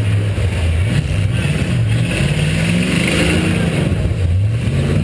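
Demolition-derby car's V8 engine revving hard close up, its note climbing and dropping as the throttle is worked.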